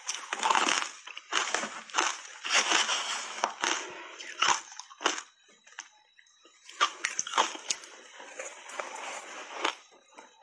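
Crunching and chewing of shaved ice coated in matcha powder, picked up close to a clip-on microphone: irregular crisp crunches, with a short lull about halfway before the crunching starts again.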